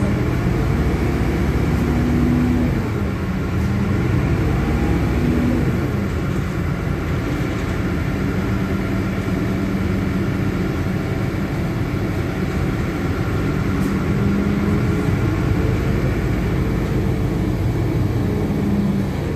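Diesel engine of a LiAZ-5292.21 city bus, heard from inside the passenger cabin as the bus drives, over steady road noise. Its low hum rises and falls in pitch several times as the bus speeds up and slows.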